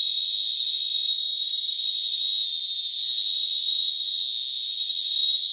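A chorus of cigarrito, a small cicada, singing together: a steady, thin, high-pitched buzz, loud enough that it hurts the ear.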